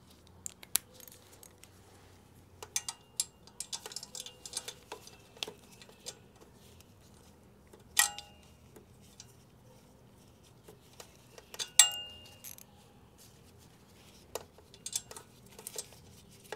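Metal sockets and a socket extension clinking and rattling as they are handled and fitted, with scattered small clicks and two louder, ringing metal clinks about eight and twelve seconds in.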